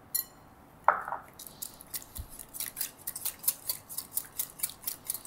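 A wire whisk beating egg mixture in a glass bowl: rapid, even strokes of metal against glass, starting about a second and a half in, after a clink near the start.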